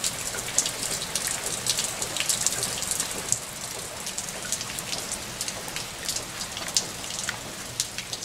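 Heavy rain falling steadily, a hiss dotted with many sharp drips and splashes, with water spilling off a roof gutter and onto wet flagstones.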